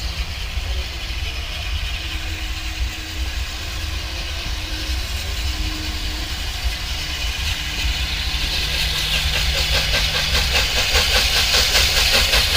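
Steam locomotive approaching: its steam hiss and rapid, even exhaust beats grow steadily louder over the last few seconds, over a continuous low rumble.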